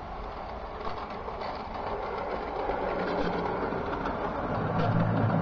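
O gauge model two-car diesel multiple unit running along garden railway track, its motor and wheels making a steady rumble with faint ticks over the rail joints, growing louder as it approaches.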